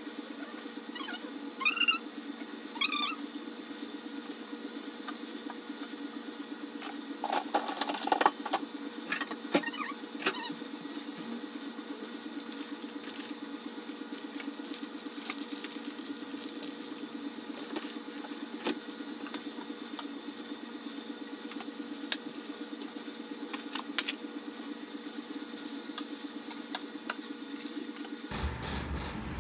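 Chicken pieces shallow-frying in oil in a stainless steel skillet: a steady sizzle with scattered pops and crackles, over a constant low hum.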